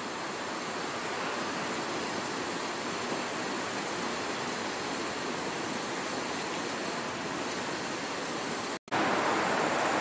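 Steady wash of city street ambience, an even hiss-like rush with no distinct events. It cuts out for an instant near the end and comes back a little louder.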